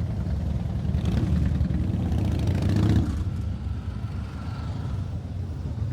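Motorcycle engine idling with a low steady rumble, revved up from about a second in to a peak near three seconds, then settling back to idle.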